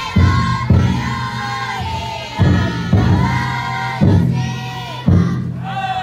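Futon daiko festival float's big drum struck with heavy beats, mostly in pairs about half a second apart, under a crowd of bearers chanting in unison with long drawn-out calls that fall away at the end.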